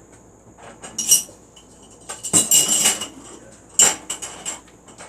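Silverware clinking and rattling in a tabletop dishwasher's silverware basket, in a few short bursts with a metallic ring, the longest about two and a half seconds in.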